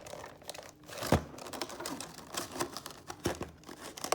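A cardboard collection box being pried open by hand: irregular crinkling, scraping and small clicks of cardboard and packaging, with two louder knocks, about a second in and just after three seconds.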